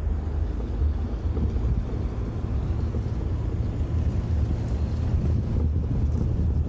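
Wind buffeting the microphone of a roof-mounted camera on a moving car, a steady low rumble mixed with the car's tyre and road noise.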